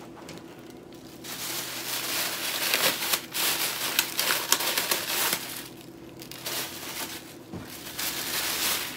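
Clear plastic bag crinkling and crackling as hands handle and sort the ring light's colour filter pieces inside it, starting about a second in and easing briefly past the middle.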